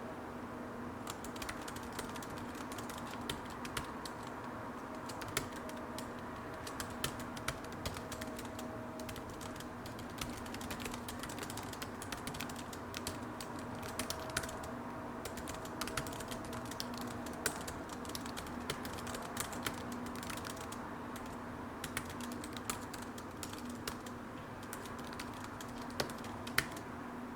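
Typing on a computer keyboard: a continuous run of irregular key clicks, a few struck harder than the rest, over a steady low hum.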